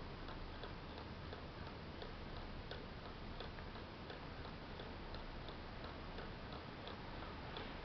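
Pendulum clock ticking: small, evenly spaced ticks, a few each second, over a steady background hiss and low hum.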